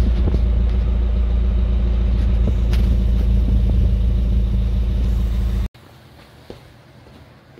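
Exhaust of a Toyota Tercel wagon's four-cylinder engine, heard close to the tailpipe, running steadily with a deep low note. It cuts off suddenly about five and a half seconds in, leaving only faint background noise with a single click.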